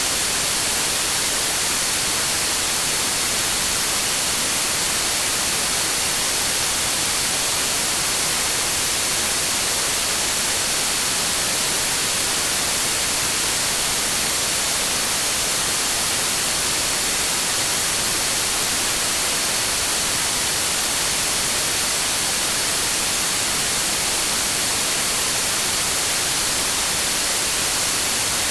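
Continuous generated green noise for sleep and tinnitus masking: a steady, unchanging hiss, brightest in the highs, with a faint steady high tone running through it.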